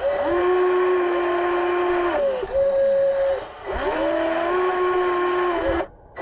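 Motor whine of a radio-controlled model excavator working its boom: the pitch rises and holds for about two seconds, falls back, then rises and holds again, and cuts off suddenly just before the end.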